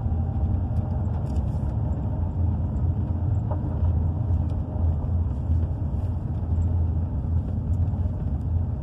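Car driving slowly on a narrow paved road, heard from inside the cabin: a steady low rumble of engine and tyres.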